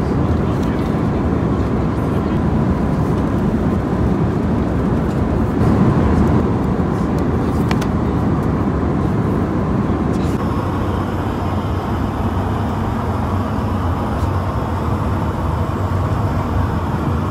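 Steady cabin noise of an Airbus A320 in flight: a broad, even rumble of engines and airflow. About ten seconds in, the sound shifts slightly and faint steady high tones join it.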